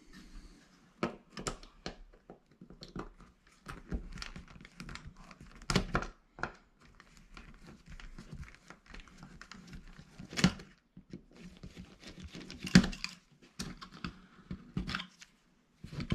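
Irregular small clicks, scrapes and plastic crinkling as a small screwdriver works the mounting screws of an old plastic wall thermostat and its base is handled and pulled from the wall.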